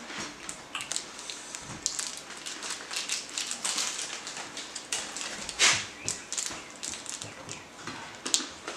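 Snacks being eaten and handled: irregular crunching and rustling noises, with one louder noise about halfway through.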